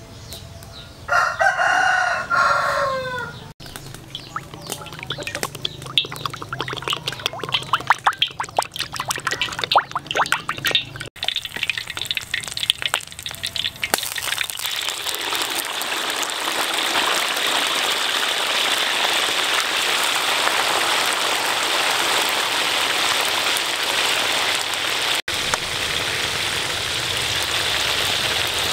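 Frogs deep-frying in hot oil in a wok: irregular crackling and spattering, settling into a steady sizzling hiss from about halfway. A rooster crows once about a second in.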